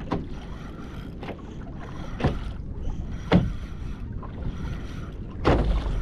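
Choppy sea waves slapping against the hull of a fishing kayak: five sharp slaps over a steady low rush of wind and water, the loudest a little past the middle and near the end.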